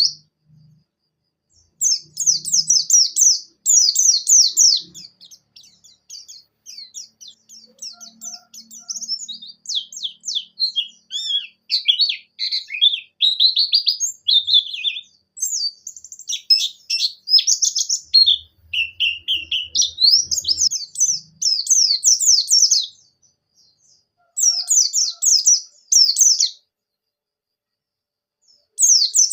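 Pleci (white-eye) singing a fast, high, chirping and warbling song. It comes in a long near-unbroken run of trills and sharp notes, then in shorter bursts separated by brief pauses.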